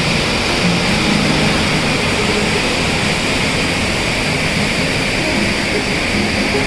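Waterfall's falling water rushing in a loud, steady roar.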